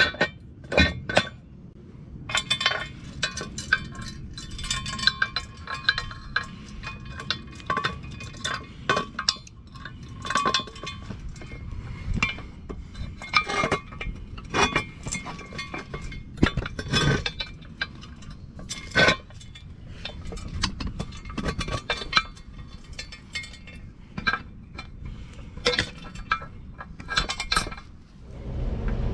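Repeated metallic clinking and clanking, sharp knocks with a short ring, from a steel jack stand and its attached chain being handled and set under the car.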